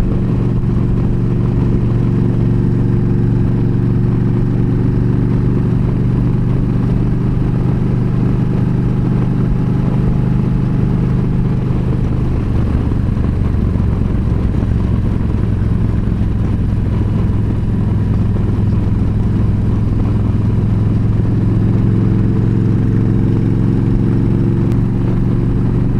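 Yamaha V-Star 1300's V-twin engine running steadily at cruising speed, heard from the rider's seat. Its note softens around the middle and strengthens again near the end.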